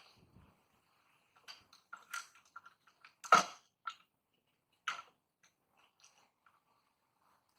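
Scattered clicks and knocks from handling a hand drill and its vertical drill stand, the loudest knock about three seconds in.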